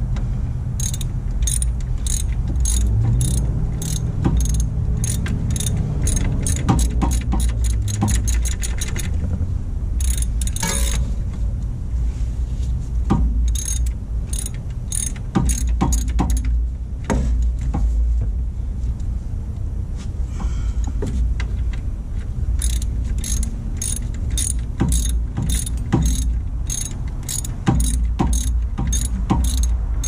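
Ratchet wrench clicking in quick runs of even clicks, with pauses between runs, as bolts at the alternator are backed off. A low rumble runs underneath.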